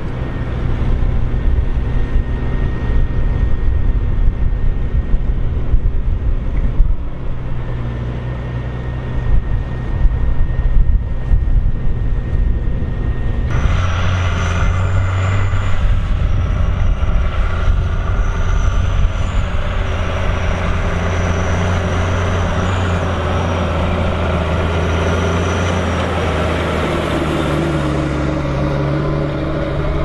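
Diesel engine of a TerraGator 3244 six-wheeled slurry applicator running steadily. About halfway through it turns louder and fuller as the machine drives across the field pulling its slurry injector, with a thin high whine coming and going over the engine.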